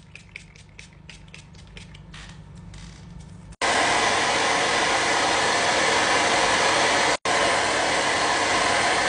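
Quick repeated spritzes of a spray bottle on damp hair, about three or four a second, then a handheld hair dryer starts suddenly a few seconds in and blows steadily and loudly, with one split-second break.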